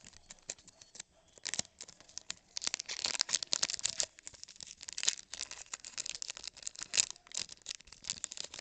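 Glossy Topps Chrome baseball cards being slid and shuffled against each other in the hands: a run of quick scraping, crinkling rustles, loudest about three to four seconds in and again around five and seven seconds.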